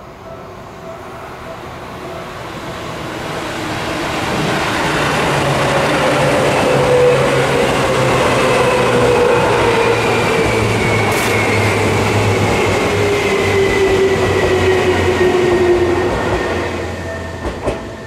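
A yellow Seibu electric commuter train passes close by at a level crossing. The noise builds over a few seconds, stays loud for about ten, then fades. Through the loud part its motors whine and the whine slowly falls in pitch, and a few sharp clacks from the wheels come near the end.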